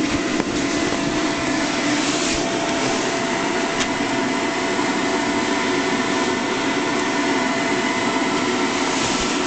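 Electric air blower keeping an inflatable bounce house inflated, running with a steady, constant hum.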